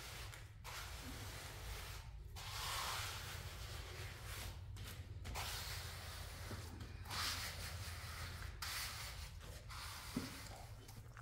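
Repeated rough rubbing strokes, each a second or two long, about six in all, over a low steady hum.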